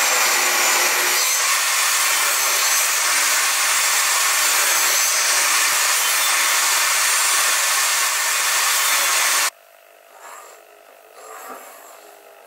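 Electric power tool running steadily on pine wood, with a faint wavering high whine over the noise. It cuts off suddenly about three-quarters of the way through, leaving faint scraping and handling sounds.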